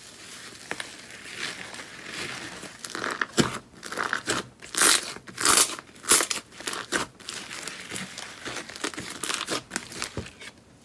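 Thick yellow slime pressed, kneaded and stretched by hand in a plastic tub, giving a dense run of irregular crackles, thickest in the middle.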